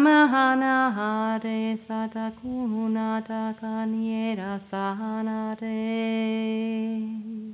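A voice intoning Light Language: wordless syllables chanted on a nearly steady pitch, with short breaks and small glides between them. It stops near the end.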